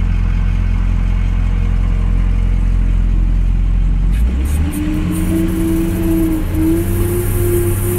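Ford Power Stroke diesel plow truck running: a deep, steady low rumble at first, then from inside the cab about four seconds in as it drives, with a steady humming tone over the engine.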